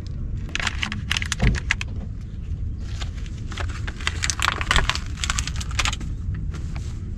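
A tarp rustling and crinkling as it is handled, with quick runs of small clicks and clinks from small metal parts, over a steady low rumble.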